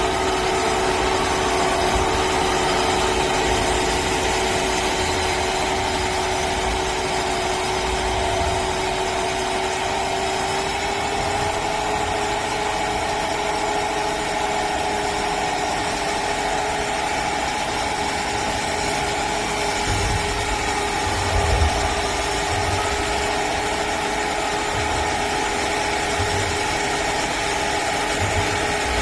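Simulated diesel truck engine played through the Servonaut SM7 sound module's speaker in a 1/14-scale Tamiya Mercedes-Benz tractor unit, a steady idle-like drone whose pitch lifts slightly about a third of the way through. Low rumbles come in about two-thirds of the way through.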